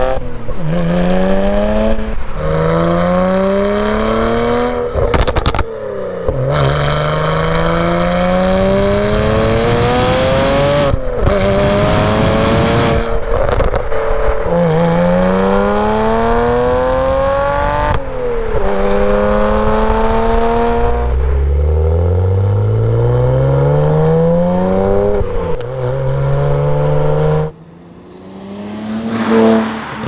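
BMW 335i's N54 twin-turbo 3.0-litre straight-six, heard close at the tailpipe, pulling hard through the gears, first on the stock exhaust and then on a Turner Motorsport valved cat-back with the valve open. Its pitch climbs and drops back at each upshift, over and over. Near the end the sound falls away, then swells briefly and fades as the car pulls away.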